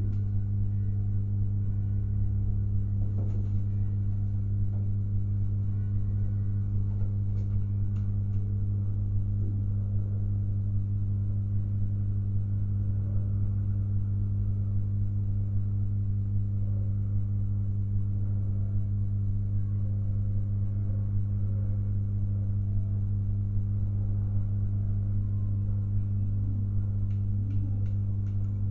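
Steady low electrical hum with evenly spaced overtones, unchanging throughout, with a few faint clicks.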